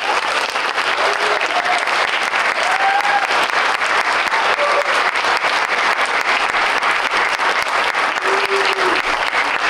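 Audience applauding steadily: many hands clapping in a hall, starting just as the poem ends.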